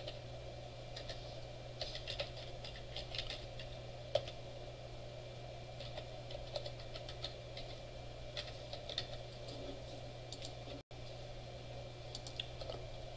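Faint computer keyboard typing in short, irregular runs of keystrokes as a username and password are entered, over a steady low hum.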